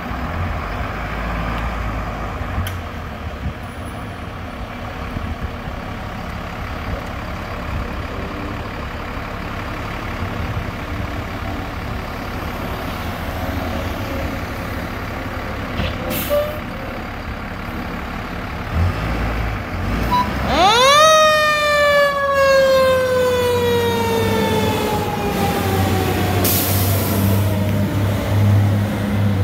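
E-One fire engine's diesel engine running as the truck pulls out, with a short hiss of air like a brake release about halfway. About two-thirds of the way in, its mechanical siren winds up sharply and then slowly winds down in pitch, the loudest sound here.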